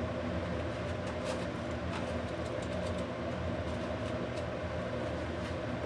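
2008 Toyota Yaris's 1.5-litre four-cylinder engine idling steadily, with a few faint ticks, through an exhaust that leaks at a deteriorated manifold flange.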